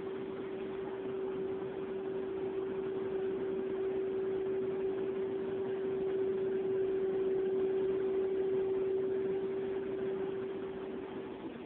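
Steady mechanical hum with one constant mid-pitched tone over a hiss, swelling a little louder in the middle and easing off near the end.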